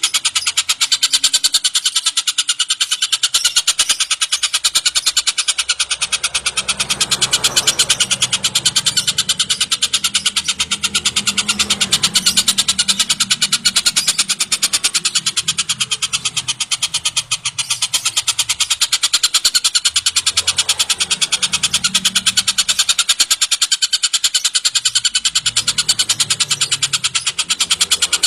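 Collared kingfisher (tengkek buto) calling nonstop: a fast, unbroken run of sharp, high repeated notes.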